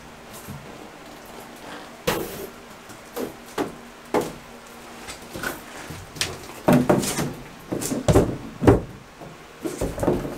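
A thin plastic glue-up tub-surround panel being handled and pressed against the wall, giving irregular knocks and rustles as it flexes and bumps. The knocks grow louder and closer together in the second half.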